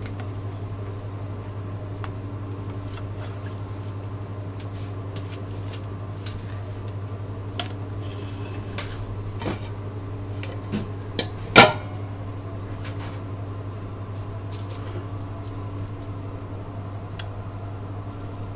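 Clinks and knocks of stainless steel kitchen bowls and utensils being handled, with one loud metallic clang a little past the middle. A steady low hum of kitchen equipment runs underneath.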